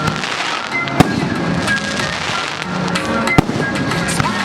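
Aerial fireworks going off in a continuous crackle, with two sharp loud bangs, about a second in and again about three and a half seconds in. Music plays along underneath.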